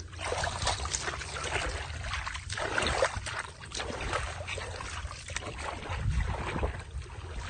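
Bare feet and hands splashing and sloshing through shallow muddy water in a rice-field channel, a quick, irregular run of splashes with no let-up.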